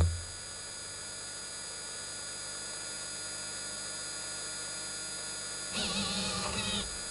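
Pen drawing machine sitting idle with its motors powered: a steady electrical hum with thin, steady high tones. About six seconds in, a short motor whir of about a second as the pen head shifts.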